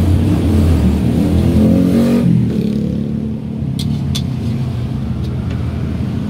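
A motor vehicle's engine on the street, running up in pitch and then dropping away about two seconds in, leaving a steady low rumble of traffic. Two light clicks come about four seconds in.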